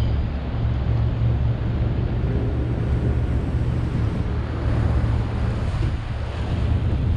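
Wind buffeting the microphone in a steady low rumble over a broad rushing hiss.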